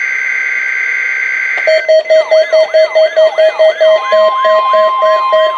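NOAA Weather Radio weekly test: a steady buzzing data tone from the alert header ends about two seconds in, and weather radio receivers go off with a pulsing beep about three times a second and rising and falling sweeps. About four seconds in, the broadcast's steady warning alarm tone starts.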